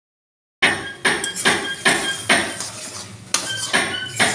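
Flat steel spatula stirring and scraping instant noodles in a steel wok: a run of short scrapes about three a second, with small metallic rings from the pan. It starts about half a second in, after a moment of silence.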